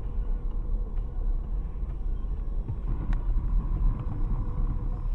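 Engine and road noise of a moving car heard from inside the cabin: a steady low rumble with a few faint ticks.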